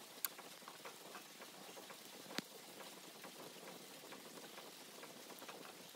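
Faint sizzling and crackling of wet stinging nettles and butter sautéing in a small stainless saucepan on a rocket stove, with one sharp click about two and a half seconds in.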